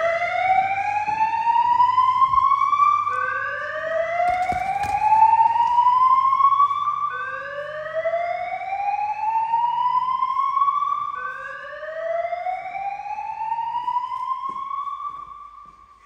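Fire alarm sounder giving a slow-whoop evacuation tone: a loud rising sweep about four seconds long, repeated over and over, stopping about a second before the end.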